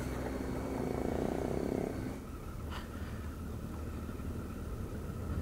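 A 2015 Triumph Tiger 800's three-cylinder engine running under way on a dirt track, heard from a helmet camera. It is a little louder for the first two seconds, then eases to a steadier, lower level.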